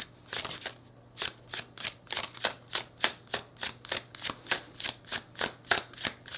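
Tarot deck being shuffled by hand: a quick, even run of card-on-card slaps and riffles, about three a second.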